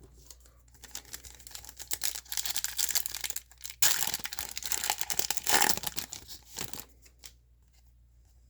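A foil trading-card pack wrapper being torn open and crinkled. The crackling builds from about a second in, is loudest in the last few seconds, and stops near the end.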